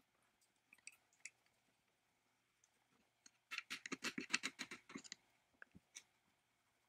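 Screwdriver tip scraping and picking caked grime out of an electric motor's field-coil housing. A few faint scratches, then a quick run of rapid scraping clicks lasting about a second and a half past the middle, then a couple of single clicks.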